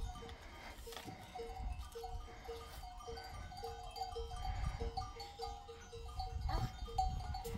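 Flock of sheep and goats, with a steady string of short, same-pitched tones repeating about three times a second over a low rumble.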